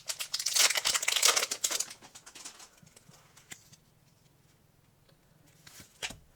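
Rustling and crinkling of Pokémon trading cards and foil pack wrapper being handled for about two seconds, then near quiet with a few light taps and a sharper click near the end.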